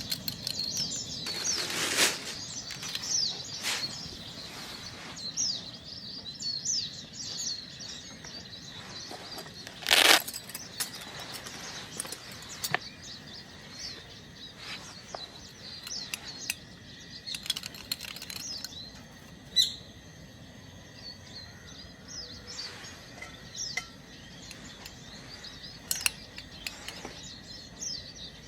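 Small birds chirping and twittering throughout, with scattered clicks and knocks. The loudest is a sharp knock about ten seconds in.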